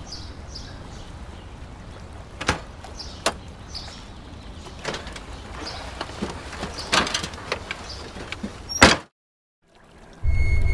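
Car doors clicking and knocking as people get into an old Volkswagen Beetle, ending in a loud door slam about nine seconds in. A moment of silence follows, then a low droning music note begins just before the end.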